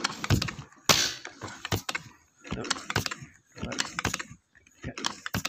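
Clicks and knocks from handling a scoped air rifle, coming in clusters about once a second, the loudest about a second in.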